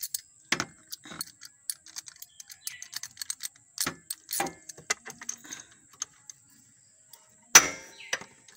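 Metal tools clinking and scattered ratchet clicks as a spark plug spanner and ratchet are fitted to a scooter's spark plug to take it out, with one louder metallic knock near the end.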